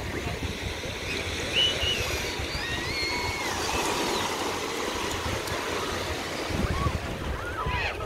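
Small waves washing and breaking in shallow water at the shoreline, a steady rush of surf, with wind rumbling on the microphone.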